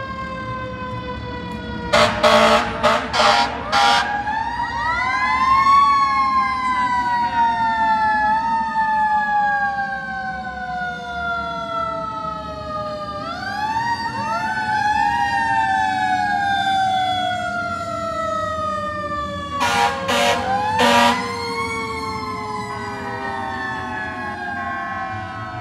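Fire truck sirens wail, winding up in pitch three times and slowly falling in between. Clusters of short, loud horn blasts come about two seconds in and again about twenty seconds in.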